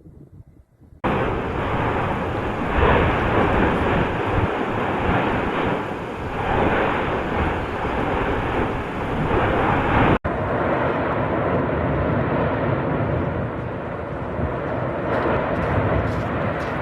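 Volcanic eruption's continuous jet-like rumble, a loud steady rushing noise that starts abruptly about a second in and breaks off for an instant about ten seconds in before carrying on.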